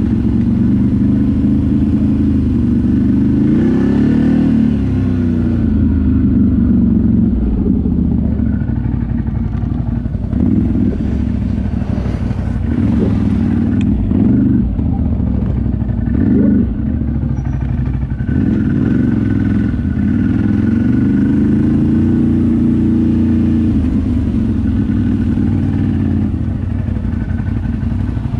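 ATV engine running as the quad is ridden, its pitch rising and falling with the throttle, with a few knocks and rattles in the middle.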